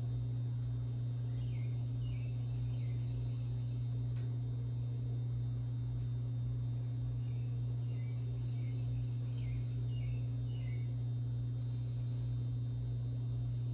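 Hunter Castleton ceiling fan motor running with a steady low hum. Faint short chirps come in two spells, about a second in and again from the middle of the stretch.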